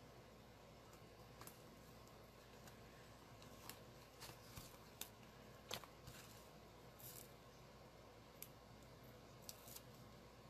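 Faint, scattered small clicks and rustles of hands handling card stock and double-sided Tear & Tape, with a brief scratchy hiss about seven seconds in.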